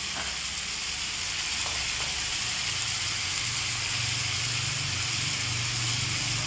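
Skin-on chicken pieces sizzling steadily as they sear in a cast-iron skillet, with a low steady hum underneath.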